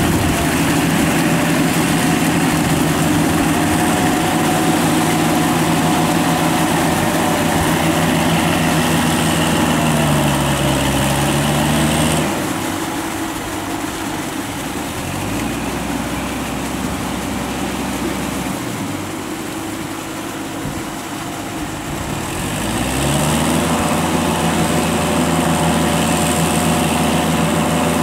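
Tractor diesel engine running steadily under load as it pulls cage wheels and a levelling board through a flooded rice paddy. About ten seconds in, the engine note drops and stays lower and quieter for around ten seconds, then climbs back up.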